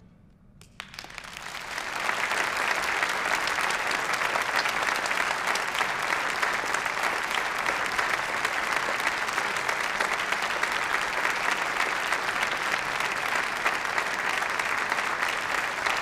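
A concert-hall audience applauding. The clapping breaks out about a second in, swells over the next second, then holds steady and loud.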